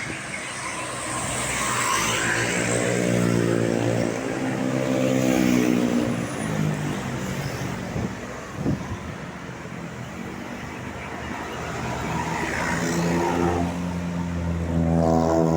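Two tour buses passing one after the other, their diesel engines swelling as each approaches and the engine note dropping as it goes by. There is a brief sharp click between the two passes.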